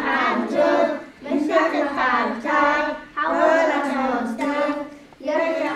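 Young voices singing a song, in phrases of one to two seconds with short breaks between them.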